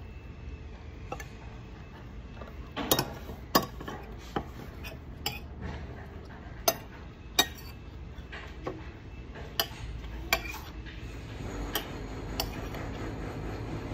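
Cutlery clinking against a plate during a meal: about a dozen sharp clicks at irregular intervals, several close together near the start, over a low steady background.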